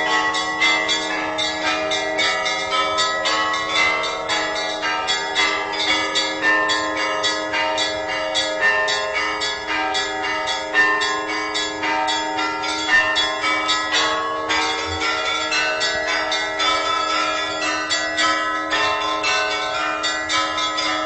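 Russian Orthodox church bells ringing a festive Easter peal. Deep bells hum steadily beneath a fast, unbroken pattern of strikes on smaller, higher bells.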